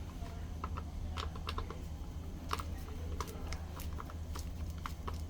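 Scattered light clicks and taps, some in quick little clusters, of a tool working against the plastic and metal parts of a smart door lock as its housing is pried open, over a steady low hum.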